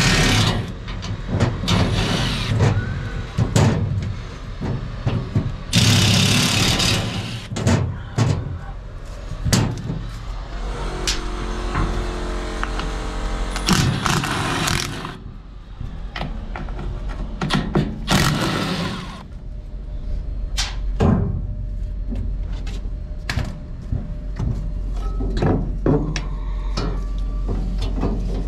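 A Milwaukee cordless impact driver running in several loud bursts on sheet-metal panel screws, amid repeated metal clanks and knocks as a condenser fan cage and access panel are handled. A steady low hum runs underneath.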